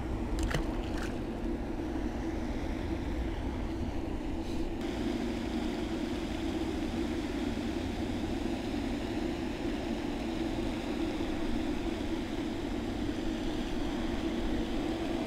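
A released bluegill drops back into the pond with a small splash about half a second in. After it comes a steady outdoor rumble of wind and moving water with a low, even hum.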